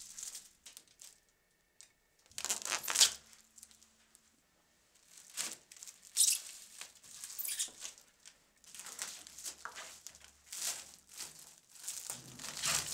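Plastic stretch-wrap film crinkling and crackling as it is pulled, stretched and pressed by hand onto cardboard boxes on a pallet, in a run of irregular bursts, loudest about three seconds in.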